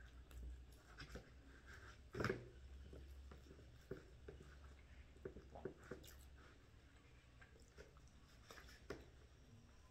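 Faint rustling and crackling of corn husks being peeled off a fresh-corn tamale, with quiet chewing. One louder crackle about two seconds in.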